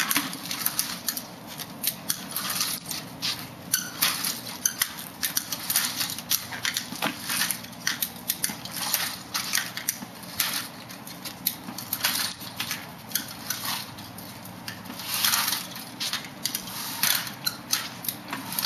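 Wheeled aluminium walker with tennis-ball glides pushed along concrete by a person walking in leg braces: an irregular run of scuffs, scrapes and light rattling clicks from the walker and shoes, with a few longer scrapes late on.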